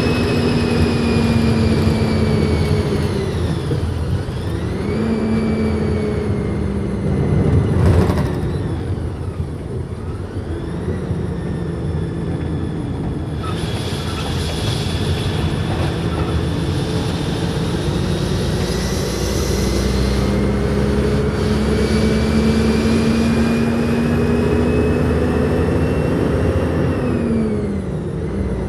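Truck engine heard from inside the cab while driving. Its pitch climbs slowly, drops sharply about four seconds in and again near the end, over steady road noise. A sharp knock about eight seconds in is the loudest moment.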